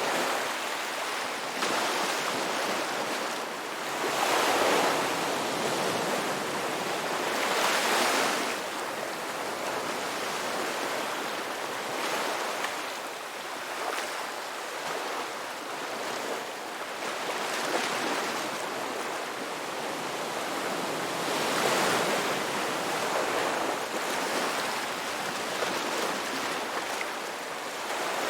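Ocean waves washing onto the shore, a steady hiss that swells as each wave breaks, roughly every four seconds.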